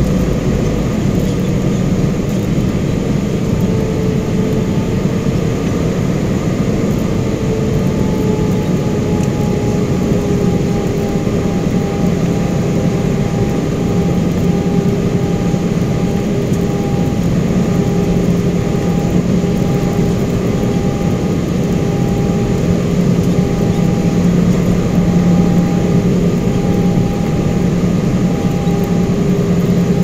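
Cabin noise inside an Airbus A320-family airliner, heard from a window seat over the wing: the turbofan engines run steadily under a constant rush of air. A low hum and a higher tone sit in the noise, and the higher tone settles slightly lower in pitch over the first ten seconds.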